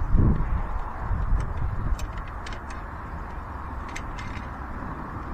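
A car's scissor jack being wound down by hand, giving a few light clicks over a low steady rumble.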